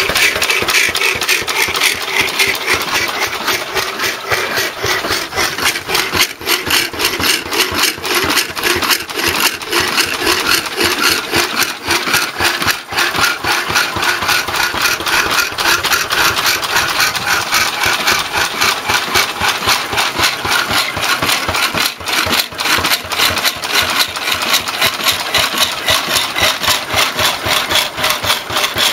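1929 Lister A single-cylinder stationary engine running on TVO with a steady, rapid beat, working hard under load as it belt-drives a power hacksaw, with the saw's reciprocating strokes cutting brass plate mixed in.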